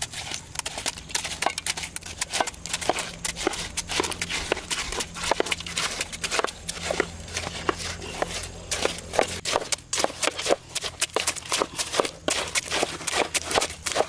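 Irregular run of short clicks and knocks, several a second, over a low steady hum that fades about two-thirds of the way through.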